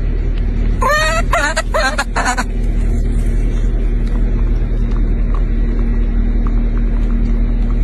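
A baby macaque gives several quick, high, wavering cries about a second in, over a steady low rumble.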